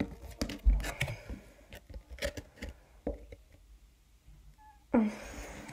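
Trading cards and plastic card packaging handled on a tabletop: light clicks, taps and slides, with a low thump about a second in and a louder noise starting near the end.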